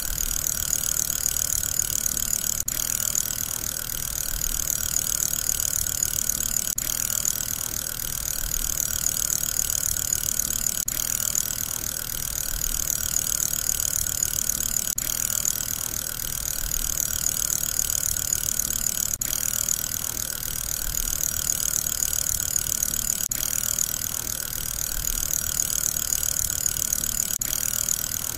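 Fidget spinner whirring steadily on its ball bearing: a continuous hissing hum, with a faint tick and a slight swell in loudness that repeat about every four seconds.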